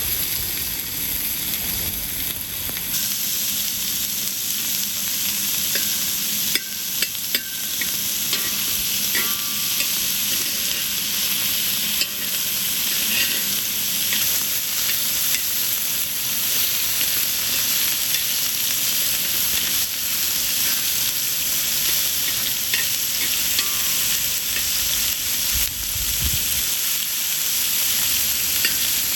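Food sizzling in a hot pan, a steady crackling sizzle, with a few sharp clicks of a utensil against the pan about seven seconds in.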